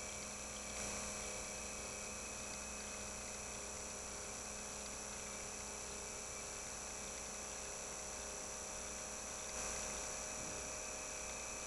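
Steady electrical hum and hiss with a faint high whine and no other events, briefly swelling slightly about a second in and again near the end.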